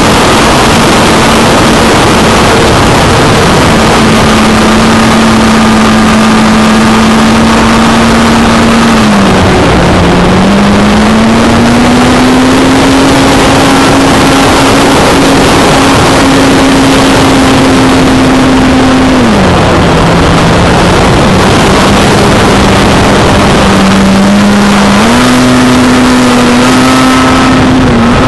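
Onboard sound of the electric-converted Kangke Cap 232's NTM 5060 380kv brushless motor and 15x6 propeller: a steady drone under heavy wind rush on the cowl-mounted camera's microphone. The pitch sags briefly about a third of the way in, climbs higher and holds, drops again about two-thirds in, then rises near the end as the throttle changes through the manoeuvres.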